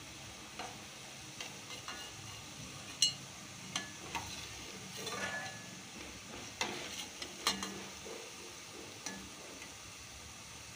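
Jalebis sizzling as they fry in hot ghee in a steel kadhai. Scattered sharp clinks and scrapes come from a steel slotted spoon against the pan as the fried jalebis are lifted out, the loudest about three seconds in.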